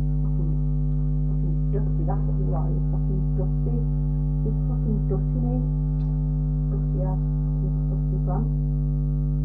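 Steady electrical mains hum: a low buzz with a ladder of higher tones above it that never changes, running under quiet talking.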